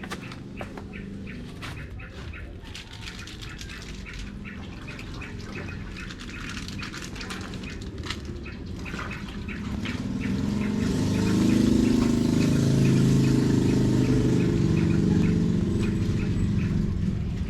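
Clothes being washed by hand in a basin of water: wet fabric squelching and water sloshing in quick repeated strokes, growing louder and fuller from about ten seconds in.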